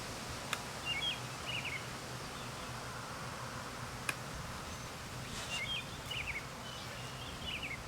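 Steady low buzzing of a honeybee swarm, with a small bird chirping in short phrases about a second in and again in the second half. Two sharp clicks come about half a second and four seconds in.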